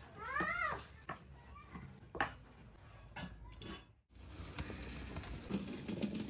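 A brief high-pitched voice, rising and falling once, in the first second, then scattered faint clicks and taps. A low steady hum comes in near the end.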